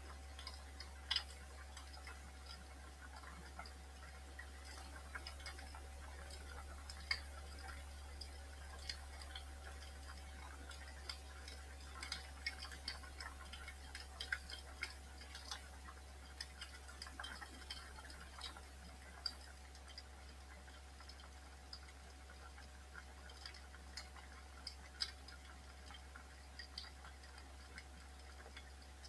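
Fire crackling in a fireplace, with irregular sharp pops and snaps over a low steady hum.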